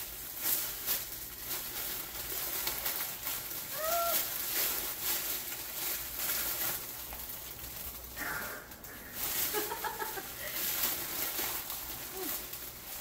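Packaging being handled: dense crinkling and rustling with a few brief pitched squeaks in between.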